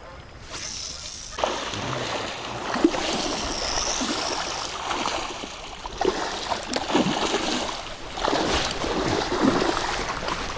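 Water splashing around a kayak in irregular gusts, beginning about a second and a half in.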